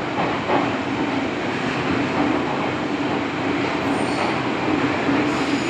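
MTR M-Train electric multiple unit running, heard from inside the car: a steady rumble of wheels on the rails and running gear, with faint high-pitched squeals coming in about four seconds in.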